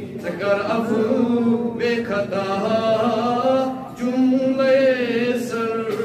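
A man's voice chanting a munajaat, a devotional supplication, in long drawn-out notes that waver, with a short breath about four seconds in.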